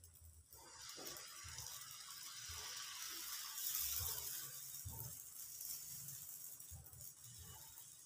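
Pancake batter sizzling in a hot frying pan as more is ladled on and spread with a metal ladle, with soft strokes of the ladle against the pan. The hiss builds to its loudest about halfway through.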